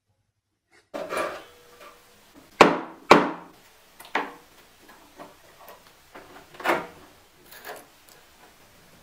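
Bench chisel cutting a joint in a wooden board: after a second of silence, a series of sharp wooden knocks as the blade is driven in, the two loudest close together early on, with quieter knocks and faint scraping cuts between.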